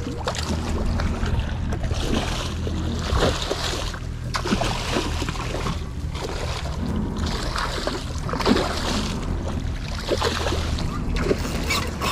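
Twin Mercury Verado V8 outboards idling with a steady low hum, while water splashes and washes in irregular surges as a hooked sailfish thrashes at the surface.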